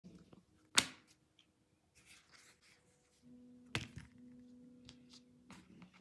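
Two sharp knocks about three seconds apart, the first one louder, with soft rustling in between, as leather pieces are laid on a cutting mat.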